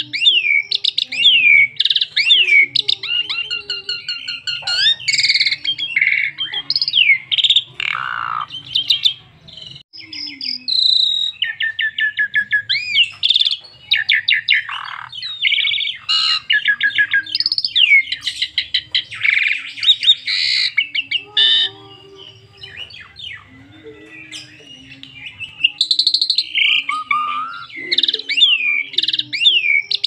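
Asian pied myna (jalak suren) singing a long, varied run of rapid chirps, rattles and falling whistles, full of phrases mimicked from other birds. There is a brief lull about ten seconds in.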